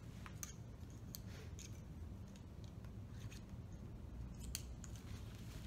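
Faint clicks and rustling as the straps of a shoulder sling are handled and their clips fastened, with a sharper click about four and a half seconds in, over a steady low hum.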